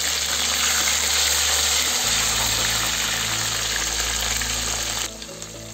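Chopped onion and tomato sizzling steadily in hot oil in a frying pan, with a steady low hum underneath; the sizzle drops away sharply near the end.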